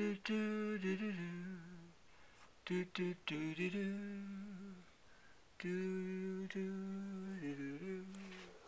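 A voice humming a slow tune in long held notes, with short pauses between phrases and a dip in pitch near the end.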